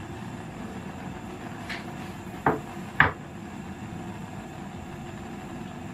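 Kitchen handling sounds at a stove: a faint tap, then two sharp clinks about half a second apart, like a bowl or utensil knocking against cookware, over a steady low hum.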